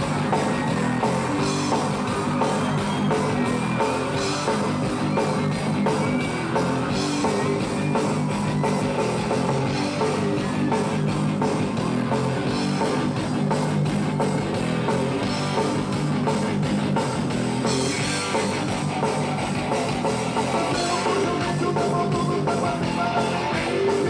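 Live rock band playing on stage: electric guitars and a drum kit.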